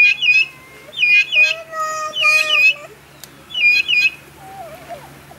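Vulturine guineafowl calling: four loud groups of two or three sharp, high clinking notes, about one group a second. A steady held lower note sounds under the third group.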